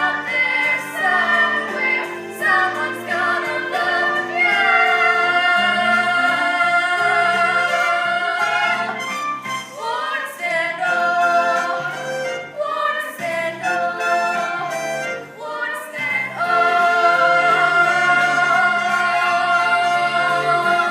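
A young stage cast singing a musical-theatre number together with instrumental accompaniment. They hold two long notes, one from about four seconds in and another near the end.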